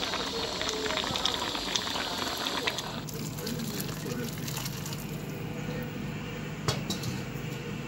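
Fish broth boiling in a pot, bubbling and crackling, then after a sudden change about three seconds in, broth being poured into the pot, with one sharp knock near the end.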